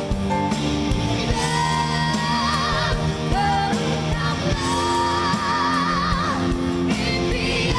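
Recorded live pop ballad duet: a singer holds long notes with wide vibrato over a backing band with drums.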